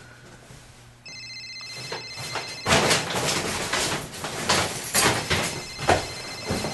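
A telephone ringing with a fast electronic trill, starting about a second in. From about three seconds in it sits under a run of loud, irregular hits.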